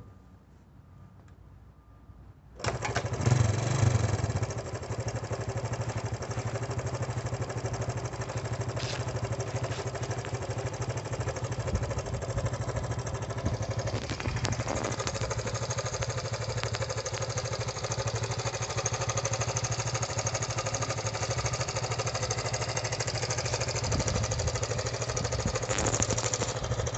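Honda SL125 single-cylinder four-stroke motorcycle engine, in a CB125 frame, starting a few seconds in. It is briefly louder as it catches, then settles into a steady idle.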